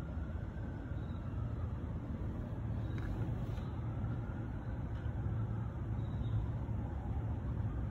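Steady low rumble of distant road traffic, with a faint tone that slowly rises and falls.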